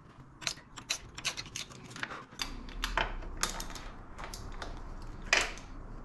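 Irregular light metallic clicks and taps of hand tools and small parts against a motorcycle engine's top end during disassembly, with one louder click about five seconds in.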